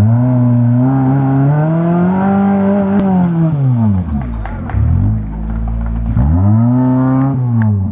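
Suzuki Gypsy 4x4's petrol engine revving hard off-road, its pitch climbing and falling repeatedly as the throttle is worked. It drops sharply twice in the middle and climbs again before falling near the end.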